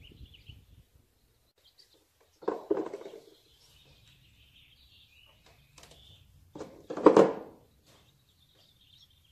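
Two short, loud bursts of mechanical noise about four seconds apart while the lug nuts of a pickup's front wheel are being taken off. Small birds chirp throughout.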